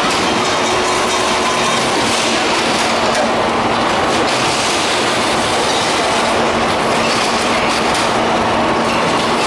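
Automatic carton packing line and its roller conveyors running: a steady, dense clatter and rattle of machinery, with a faint steady hum under it.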